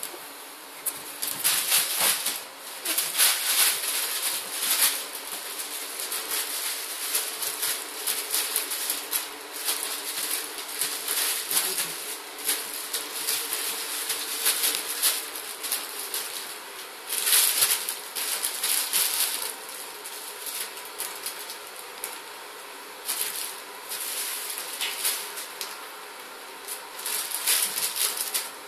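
A cat and a puppy scuffling in play: irregular rustling and scrabbling of paws on a wooden floor and a fabric mat, coming in bursts.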